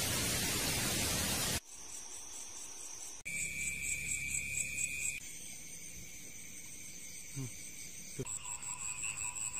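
A loud, even hiss for about the first second and a half. Then night-time insects and frogs calling: steady high trills and rapid pulsing chirps, whose pitch and pattern change abruptly three times.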